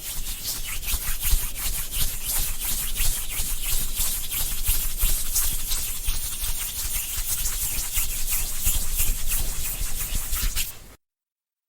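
Hands rubbing together briskly: a continuous dry rasping made of rapid back-and-forth strokes. It cuts off suddenly near the end.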